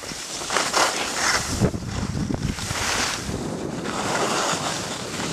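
Wind rushing over the microphone during a downhill ski run, with skis hissing and scraping over packed snow in repeated swishes as they turn.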